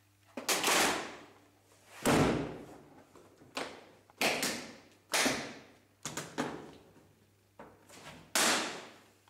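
Large hard-shell suitcase being shut and pushed down on: a series of about eight loud thumps and bangs a second or so apart, each dying away with some room echo.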